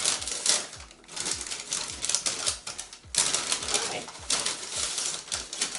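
Packaging being handled and opened by hand: dense crinkling and rustling in rapid crackles, loudest near the start and again from about three seconds in.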